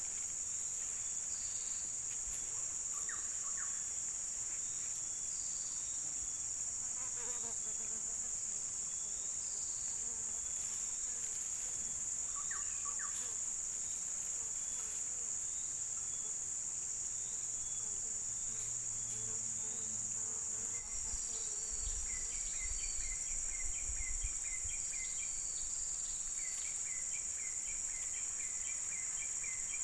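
Steady, high-pitched chorus of insects buzzing without a break, with faint chirping calls that come in quick repeated series in the second half.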